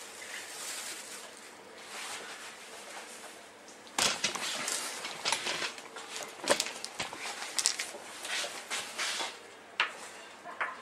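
Faint room hiss, then from about four seconds in a run of sharp clicks and rustles: a container of frozen sponge-cake stars being uncovered and handled on a worktop.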